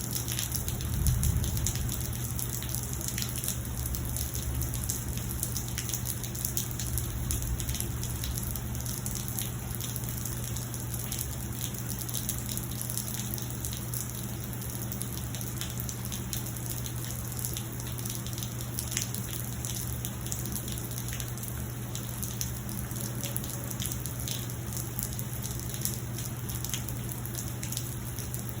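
Steady rain falling, with separate drops heard as small sharp ticks throughout. There is a brief low rumble about a second in.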